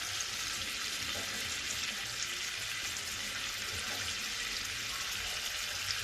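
Pork chop frying in butter in a pan: a steady sizzle.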